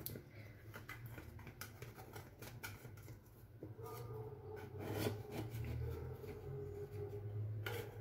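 Metal spatula scraping and tapping lightly against the sides of a metal baking pan while spreading a soft mousse topping, in scattered faint clicks, with a slightly sharper click near the end. A steady low hum runs underneath.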